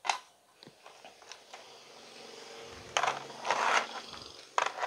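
Handling noises as an analog multimeter is set down on a TV circuit board: a sharp knock at the start, a clatter about three seconds in with a short scrape after it, and another knock near the end.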